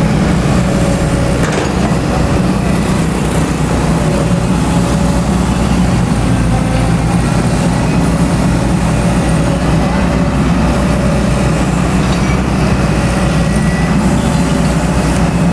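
XCMG XE210i hydraulic excavator's diesel engine running steadily under work, with faint wavering whining tones above the engine hum.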